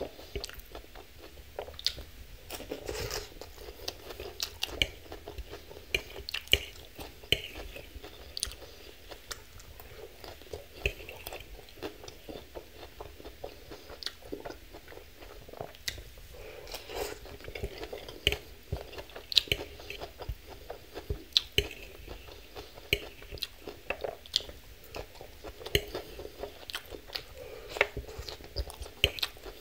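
Close-miked chewing of a crunchy leafy-green salad: irregular, sharp crunches and wet clicks as mouthfuls of lettuce and greens are bitten and chewed.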